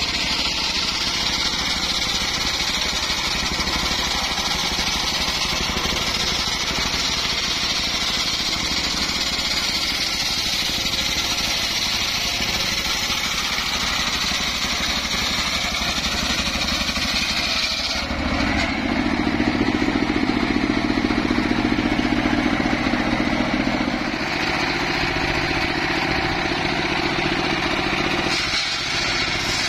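Bench circular saw cutting through a log, driven by a single-cylinder diesel engine running steadily under load. The sound changes abruptly about two-thirds of the way in, becoming louder and lower for several seconds, and changes again near the end.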